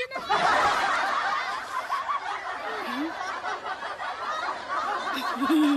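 Several people laughing and chattering at once in a loud, overlapping jumble, with one voice holding a short note near the end.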